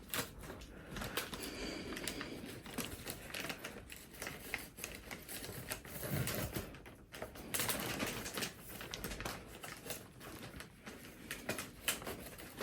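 Gift packaging being handled at close range as a bow is put on: irregular crinkling and rustling of wrapping, with many small clicks and taps.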